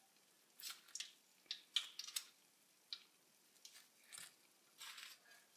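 Metal kitchen tongs clicking and scraping lightly while fried zeppole are picked up and set down on a plate: about ten short, faint clicks at irregular intervals.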